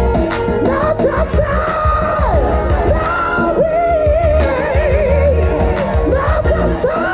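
A choir singing, with a woman's lead voice on top running through a wavering, ornamented line over the held voices of the choir.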